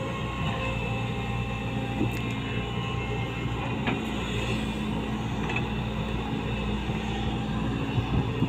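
Volvo excavator's diesel engine running steadily under load as it digs and swings a bucket of sand, a continuous low drone with a few faint knocks.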